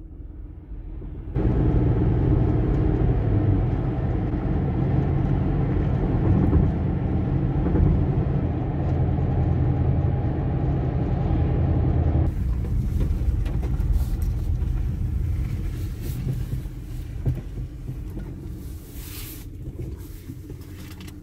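Car road noise heard from inside the vehicle while driving: a steady rumble of tyres and engine. About twelve seconds in it changes abruptly to a quieter, hissier rumble with scattered clicks, fading toward the end as the car slows.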